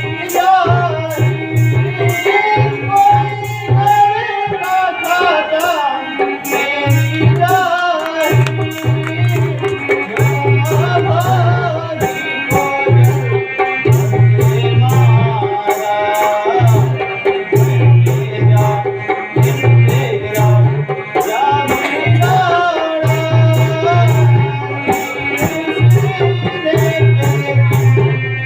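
Music: a sung melody over a rhythmic hand drum such as a tabla or dholak, with a regular high percussive tick.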